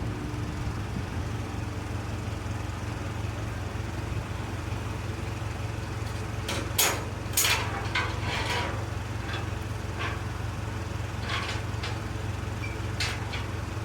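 A vehicle's engine idling steadily, with a few short clicks or knocks about halfway through and again near the end.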